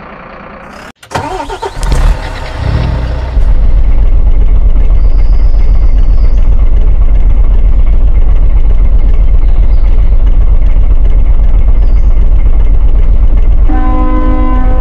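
A heavy engine starting with a few uneven sputters, then running loudly and steadily. Near the end, a horn sounds with several steady tones held together.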